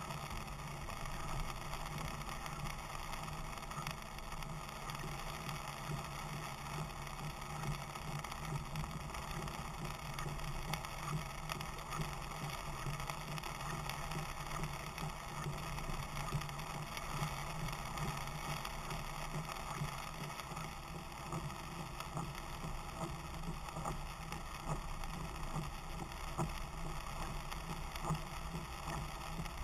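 Steady engine and tyre drone heard inside a four-wheel drive's cabin while it drives on a wet dirt road, with scattered light ticks over it.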